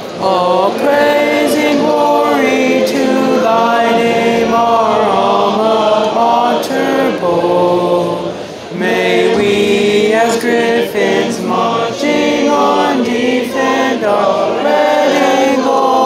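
A group of voices singing together as a choir, holding long notes, breaking off briefly about eight and a half seconds in and then starting again.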